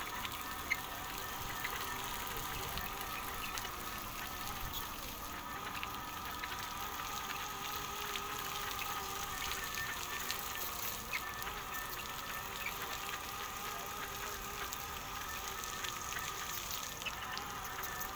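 CLESOL wet solar-panel cleaning robot running along a row of panels: a steady motor whine over an even hiss of spraying water.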